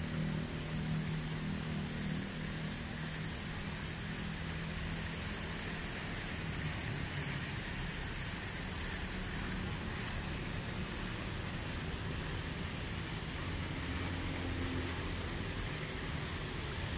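Fountain jets and a thin cascade over a stone ledge splashing steadily into a pool: an even hiss of falling water, with a low rumble underneath.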